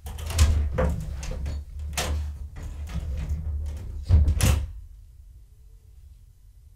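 A run of bumps, knocks and rubbing noises with a low rumble, lasting about five seconds and then stopping suddenly, the loudest knocks near the start and about four seconds in.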